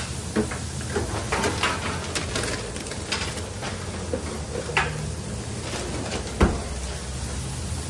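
Kitchen handling noises: scattered clicks and knocks as things are moved about, with one sharp knock about six and a half seconds in as an under-counter unit is opened, over a steady low hum.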